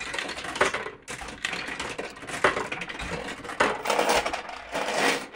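Pound coins being fed into a fruit machine, clattering and clinking as they drop through the mechanism to the bottom of the machine. The long drop to the bottom is taken by the player as a good sign.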